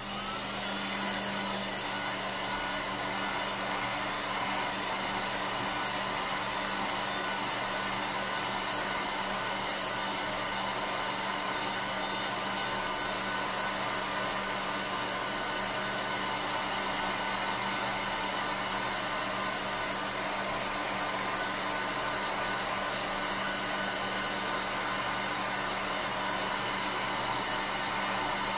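Handheld electric heat gun blowing hot air to dry wet watercolor paint; it comes on at the start with a short rising whine as the motor spins up, then runs with a steady whoosh and hum.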